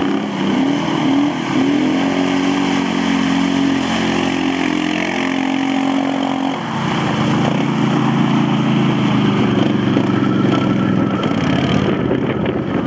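Quad bike (ATV) engine revving under load, its pitch rising and falling and then holding steady. About halfway through, the sound changes abruptly to the rougher, steadier running of several quads.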